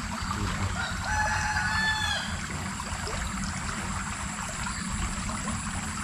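A rooster crowing once, starting about a second in: a single held call that dips in pitch at its end, over a steady background hiss of running water.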